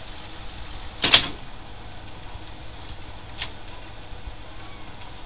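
Rock-Ola 447 jukebox selection mechanism working after a title is selected: one loud mechanical clunk about a second in and a lighter click a couple of seconds later, over a low steady hum from the machine.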